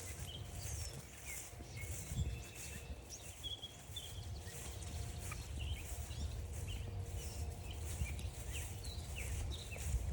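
Songbirds chirping and trilling in short calls throughout, several at once, over the uneven scuffing of footsteps on a trail.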